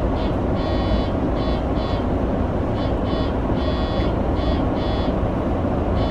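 Steady low hum of a stationary E231-series electric commuter train waiting at the platform. Over it, a high electronic chirp repeats in a cycle of about three seconds: two short chirps, one longer, then two more short ones.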